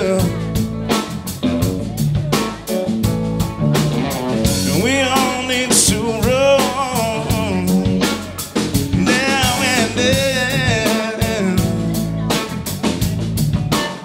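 Live blues-rock band playing: electric guitar, electric bass and a drum kit keeping a steady beat.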